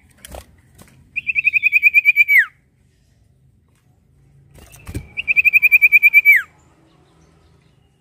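Common iora singing: two rapid trilled phrases of evenly spaced whistled notes, about ten a second, each lasting a little over a second and ending in a falling slur. Each phrase is preceded by a short wing flutter.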